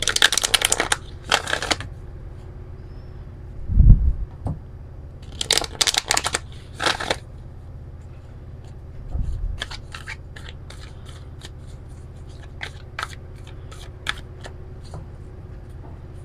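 A deck of oracle cards being riffle-shuffled by hand in several quick bursts, with the deck knocked down on the table twice, about 4 and 9 seconds in. After that come many light clicks of the cards being handled and fanned out.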